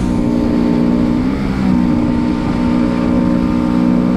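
1996 Mercury 175 EFI V6 two-stroke outboard running under way, its note dipping slightly about a second in and then holding. The owner says that on the water it goes in and out as if being revved, and suspects a bad voltage regulator/rectifier, the stator or the trigger.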